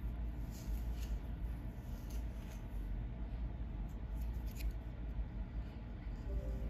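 Long acrylic fingernails scratching through coarse hair on a dry, flaky scalp, in short scratchy strokes at irregular intervals over a steady low rumble.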